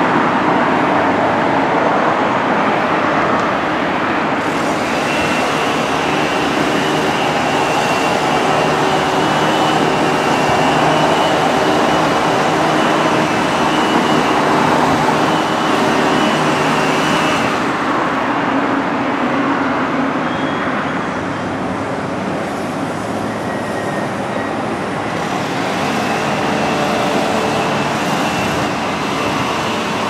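Steady, loud rumble of vehicle engines and traffic, with a thin high steady whine that comes in about four seconds in, drops out past the middle, and returns near the end.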